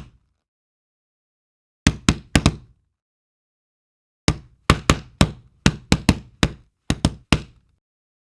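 Knocking sound effect: three quick knocks about two seconds in, then a longer run of about ten knocks starting about four seconds in, with dead silence between the groups.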